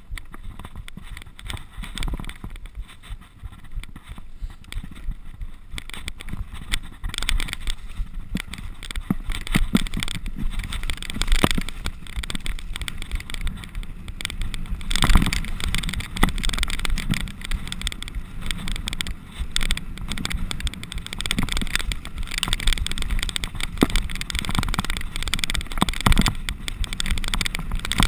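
Mountain bike descending dirt singletrack: tyres rolling over the earth trail with a low rumble, and the bike clattering and knocking over bumps. It grows louder and busier from about seven seconds in.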